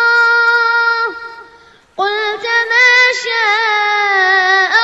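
A boy's voice chanting Quran recitation in melodic tajweed style: a long held note that fades out about a second in, a short breath pause, then a new sustained phrase with rippling ornaments on the held tones.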